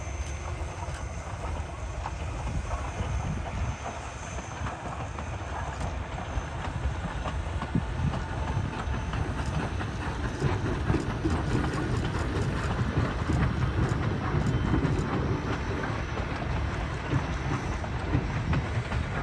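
East Broad Top narrow-gauge train running on the track: a steady low rumble with many small clicks of wheels on rail, growing a little louder through the first half.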